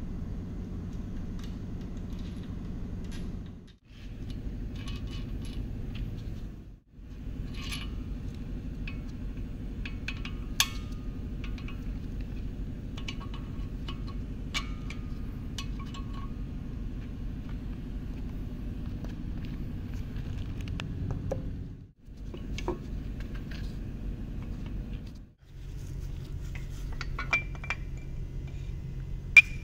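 Scattered metal clinks and taps from hand tools and the Toyota 2AR-FE engine's parts while the connecting rod caps are undone and a piston and rod are pushed out of a cylinder bore. Under them runs a steady low hum that drops out briefly four times. The sharpest clinks come near the end.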